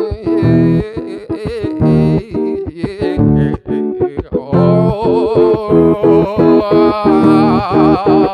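Guitar-accompanied song: strummed, plucked guitar chords with a wavering vocal line held over them from about halfway through.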